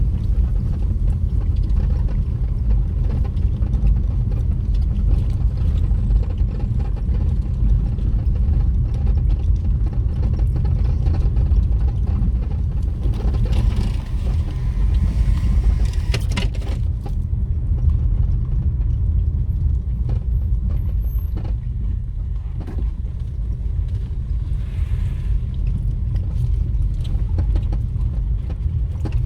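Steady low rumble of a vehicle travelling along a rough road, engine and road noise heard from on board, with a brief rise in hiss about halfway through.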